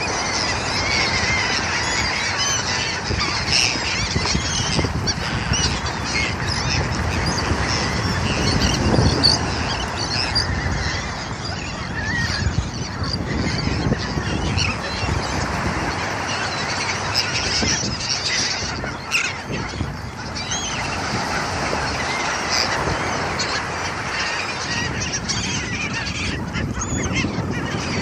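A feeding flock of gulls calling constantly and overlapping as the birds dive on a school of fish. Under them runs a steady wash of surf.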